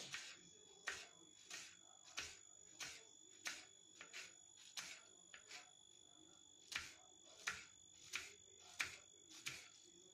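Knife slicing a red onion against a plastic chopping board: a quiet, even run of short cuts, about one every two-thirds of a second, with a brief pause midway. A faint steady high-pitched whine sits underneath.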